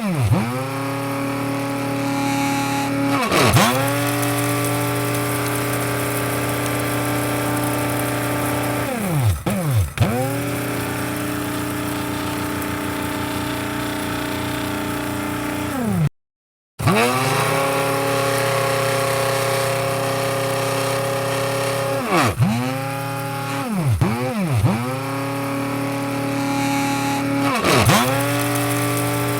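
Electric coffee grinder motor running with a steady hum, its pitch dropping sharply and coming back up about six times as the motor briefly slows and spins up again. About halfway through, the sound cuts out completely for about half a second.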